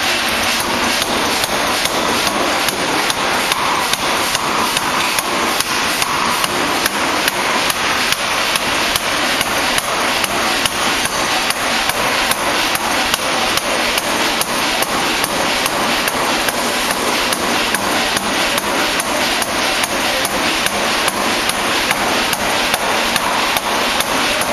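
Pneumatic forging hammer striking red-hot steel between its dies in a steady, rapid run of blows, roughly two to three a second, forging a steel ball.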